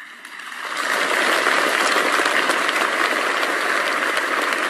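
A large audience applauding, swelling up over the first second and then holding steady.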